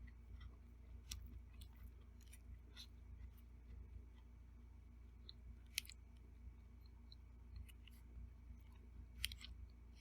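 Someone eating quietly: faint chewing and scattered light clicks of a fork against a plate, with two sharper clicks about six and nine seconds in, over a low steady hum.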